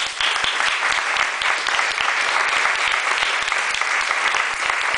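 Audience applauding: many people clapping, breaking out at once and going on steadily.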